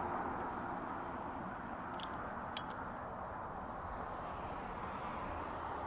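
Steady even rushing background noise outdoors, with two faint short clicks about two seconds in.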